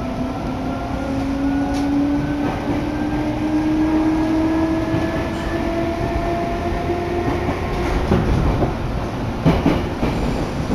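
Seibu Ikebukuro Line electric train heard from inside the carriage as it pulls away from the station. The traction motors give a whine that rises steadily in pitch as the train accelerates, then fades about seven seconds in. Near the end the wheels knock over rail joints and points.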